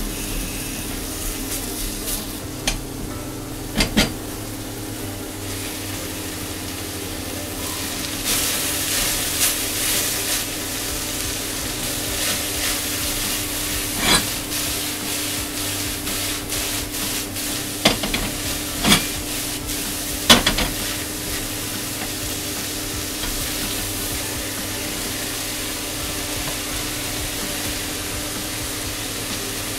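Red onion and shredded red cabbage sizzling in a stainless steel saucepan while being stirred with a wooden spatula, which knocks against the pan a few times.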